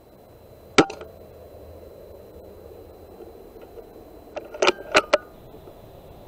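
Weihrauch HW100 air rifle firing: a sharp crack about a second in, followed at once by a smaller knock. A quick run of four or five sharp metallic clicks follows near the end, over a low steady hiss.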